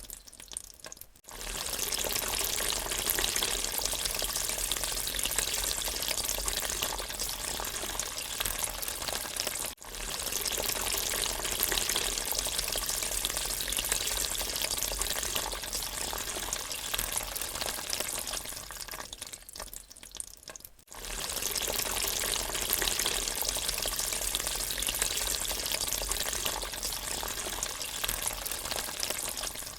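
Water draining away, a steady rushing, splashing noise, broken off briefly about ten seconds in and again around twenty seconds in.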